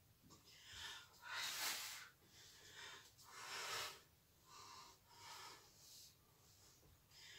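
A woman breathing hard with exertion while doing bicycle crunches: a series of short, noisy breaths in and out, the loudest about a second and a half in.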